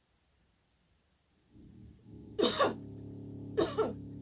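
A woman coughs twice, about a second apart, and a pet degu answers with a steady, low buzzing call that starts about a second and a half in, just before the coughs, and carries on under them.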